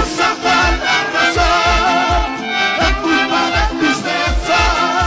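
Upbeat Latin American folk-style band music with a melody played on many pitched notes and a steady bass-drum beat, about two beats a second.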